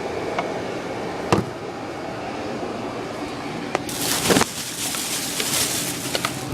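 Handling noises under the open hood at the oil filler: a sharp click about a second in and another near the middle, then a few seconds of rustling and scraping. A steady background hum runs underneath.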